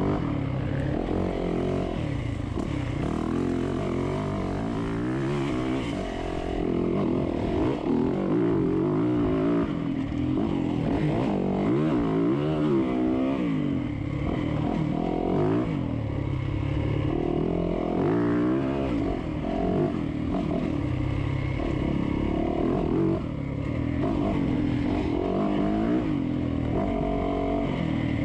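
Dirt bike engine heard close up from on board while being ridden, its note rising and falling again and again as the rider works the throttle.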